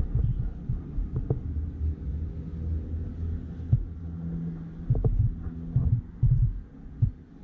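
Handling noise from hands working yarn close to the microphone while tying a knot: irregular muffled low thumps and rubbing, with a few sharper clicks.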